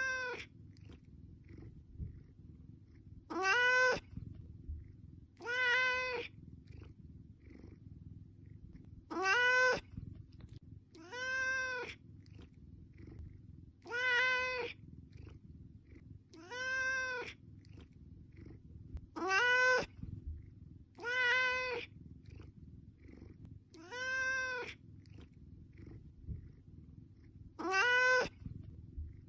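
A ginger tabby cat meowing about eleven times, one call every two to three seconds. Each meow is a single drawn-out call that rises and then falls in pitch: a cat begging for food. A low steady hum runs underneath.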